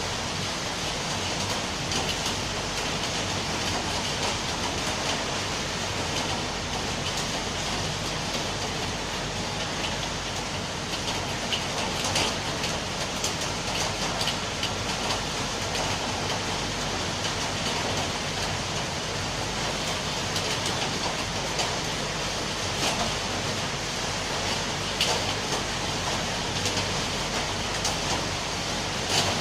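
Steady rain falling, an even hiss with scattered louder drops and drips.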